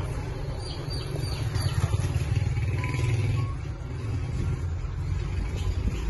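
Open-air taxi driving along a street: a steady low rumble of its engine, mixed with wind passing through the open cab.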